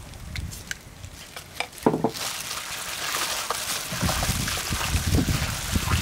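A few light clicks of a spoon scraping chili paste from a glass bowl. From about two seconds in, plastic-gloved hands knead raw meat with the paste in a stainless-steel bowl, giving a steady wet squishing.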